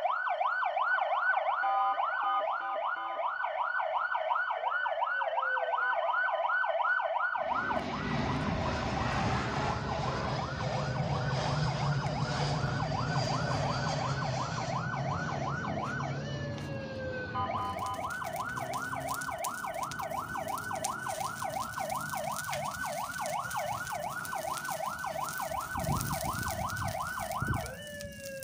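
Toy fire truck's electronic siren, a fast repeating warble. A louder rushing, whirring noise covers it for about ten seconds in the middle.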